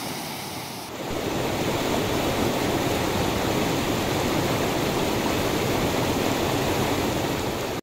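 Mountain stream rushing over rocks: a steady noise that gets louder about a second in.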